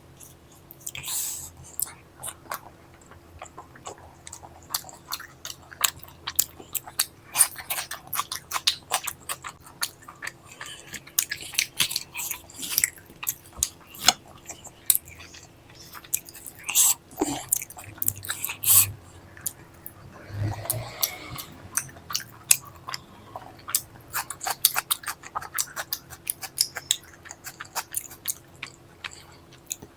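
A person chewing food close to the microphone, with many quick, irregular wet mouth clicks and smacks.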